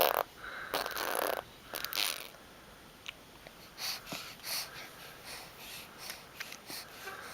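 Breathy snorts and puffs from a person: a louder noisy puff about a second in and another about two seconds in, then soft scattered short ones.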